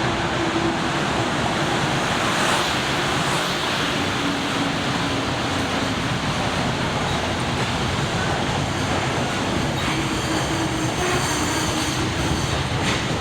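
Freight train hauled by an EH500 electric locomotive passing through a station: the wagons' wheels running on the rails make a steady, unbroken noise.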